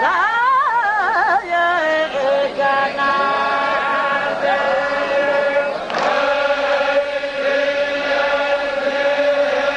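Zikri chogan devotional chanting. A voice sings a wavering, ornamented line, then settles into long held notes over a steady lower tone.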